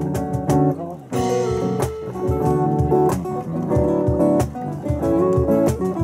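A small acoustic band playing: strummed acoustic guitars over electric bass and steady cajón beats, with a cymbal crash about a second in.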